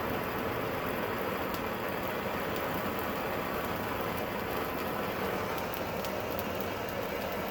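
Steady rushing hiss of a torch flame heating a starter cable lug while solder is fed in to fill it, with a few faint ticks.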